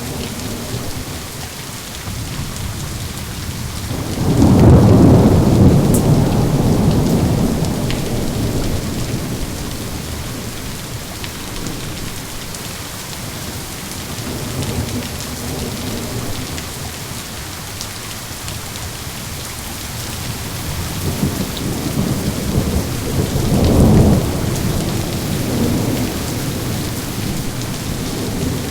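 Steady heavy rain falling, with rolls of thunder: a loud rumble about four seconds in that dies away slowly over several seconds, a fainter swell in the middle, and another rumble building and peaking near the end.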